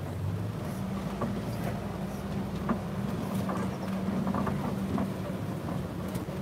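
Safari truck driving: a steady low engine hum with scattered short knocks and rattles from the vehicle.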